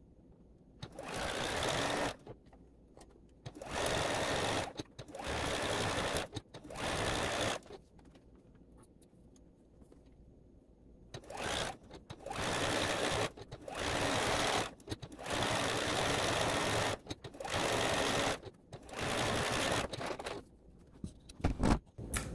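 Juki DX7 computerized sewing machine stitching interfacing onto fabric appliqué shapes in about a dozen short stop-start runs of a second or two each, with a pause of a few seconds in the middle.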